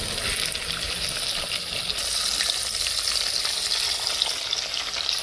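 Lightly floured fish, including a lane snapper, frying in hot oil in a pan: a steady loud sizzle with small crackles.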